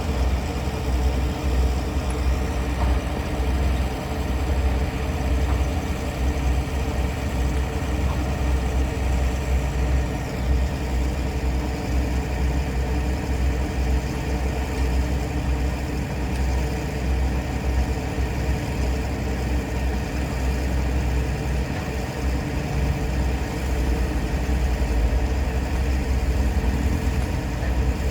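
Heavy machine's engine running steadily, a continuous low rumble with no change in speed.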